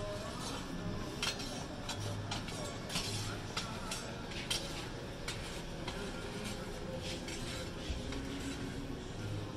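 Scattered light metallic clinks and scrapes of kitchen utensils over a steady background hum of a restaurant kitchen.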